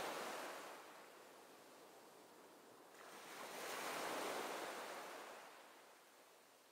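Gentle surf washing up a sandy beach: one wash fading away at the start, then another swelling to a peak about four seconds in and drawing back.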